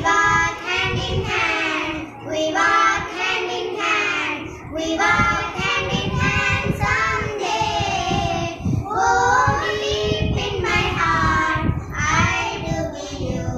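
Three young schoolgirls singing a song together in their children's voices, in phrases with short pauses between them.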